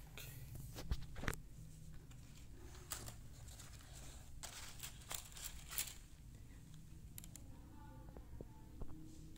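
Light rustles and scattered clicks of a cardboard component box and its paper-taped rows of transistors being handled, over a low steady room hum.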